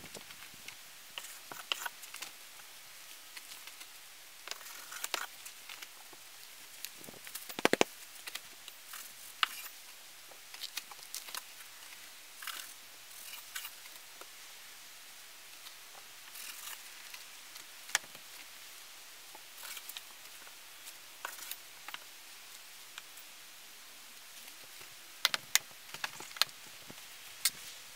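A flexible building-wrap sheet rustling and crinkling as it is handled against a stud wall, with scattered sharp clicks. A loud click comes about a third of the way in and a few loud sharp clicks near the end, as the sheet is fastened overhead.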